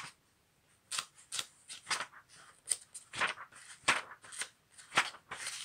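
Pages of a thick book being leafed through by hand: a string of short papery flicks and rustles, about two a second, as the pages are turned one after another.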